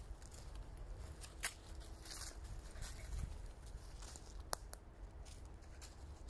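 Footsteps rustling and crunching through dry fallen leaves, with a few sharp crackles.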